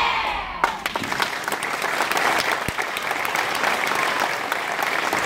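A children's choir's last sung note breaks off about half a second in, and an audience breaks into steady applause.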